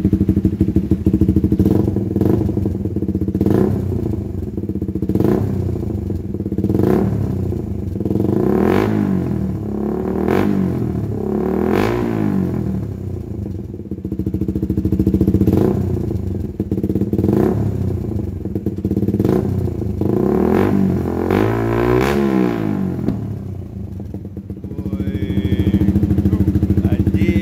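Suzuki GSX-R150's 150 cc single-cylinder engine breathing through a CLD X Monster aftermarket exhaust with the dB killer removed, loud and unbaffled. The throttle is blipped over and over, the pitch rising and falling about every one and a half to two seconds, then it drops back briefly before running loud and steady again near the end.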